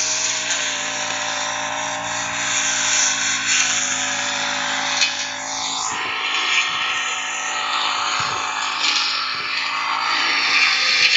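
Firman four-stroke backpack brush cutter running steadily at working speed, its blade cutting short grass. The engine note holds even, with no surging, and the owner calls the sound smooth.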